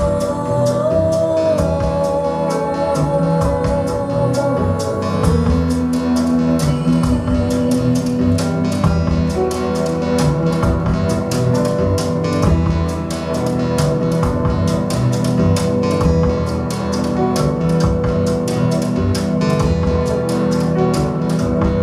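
Recorded music with guitar and a steady beat, played back over Bowers & Wilkins Nautilus 801 floor-standing loudspeakers.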